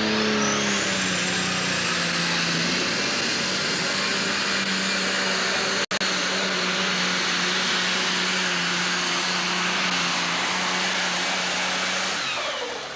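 Ford super stock pulling tractor's turbocharged diesel engine running flat out under load on a full pull. A high turbo whine rises in the first second, holds steady, and falls away near the end as the engine winds down.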